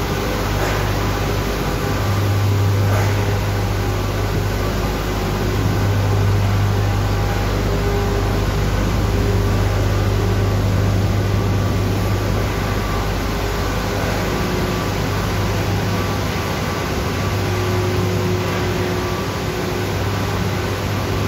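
Steady industrial drone of coal-fired thermal power plant machinery: a deep hum with a few higher steady tones over a constant rush of noise.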